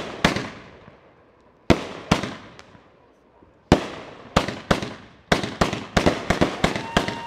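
Aerial fireworks going off with sharp bangs, each followed by a fading crackle. A few bangs come a second or two apart, then the bangs quicken into a rapid volley of several a second, with a whistling tone rising near the end.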